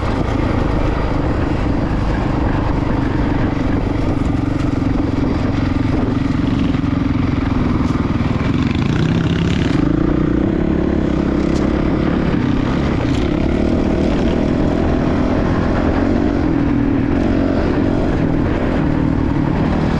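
Dual-sport dirt bike engine running continuously under way, its note rising and falling with the throttle.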